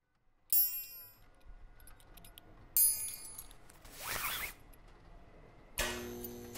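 Sound-design effects: two sharp metallic clinks that ring on high, a short swish between them and the end, then a further struck sound with lower ringing tones as a wall button is pressed near the end.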